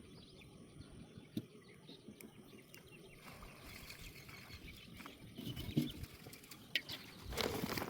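Faint rustling and scattered small clicks of a fishing net being handled, growing louder near the end.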